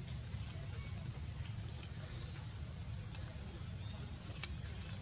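Steady high-pitched drone of insects, over a low rumble, with a sharp click about four and a half seconds in.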